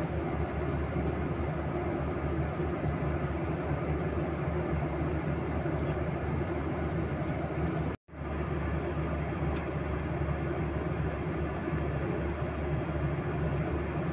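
Steady cabin drone of a Boeing 737-800 in cruise: the CFM56-7B turbofans and the rush of air over the fuselage, heard from a window seat. The sound cuts out for an instant about eight seconds in, then resumes unchanged.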